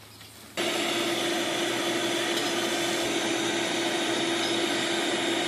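A loud, steady motor-like whir with a constant hum and a higher whine, switching on abruptly about half a second in.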